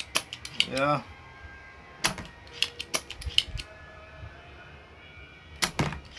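Spring-loaded solder sucker (desoldering pump) being worked while transistors are desoldered, giving irregular sharp clicks and snaps: a cluster at the start, a few in the middle and a louder group near the end.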